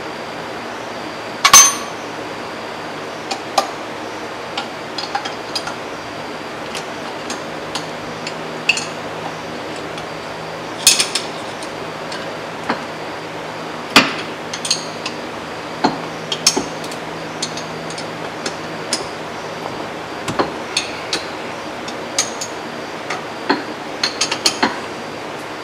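Irregular metal clinks and knocks as a hydraulic motor is worked by hand onto its mounting flange and shaft coupler on a feed wagon's conveyor drive, the sharpest knock about a second and a half in, over a faint steady hum.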